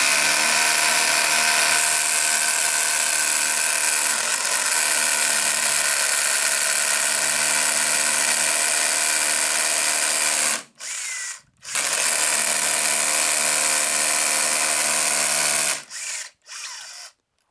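Bosch power drill boring a half-inch hole into rock-hard concrete. It runs steadily for about ten seconds, stops, gives a short burst, runs again for about four seconds, then ends with two short bursts near the end.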